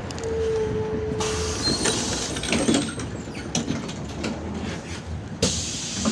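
MAZ-105 articulated city bus at a stop and then under way, heard at the door and inside the cabin: engine and road rumble, a steady tone lasting about a second and a half near the start, and scattered knocks and clatter.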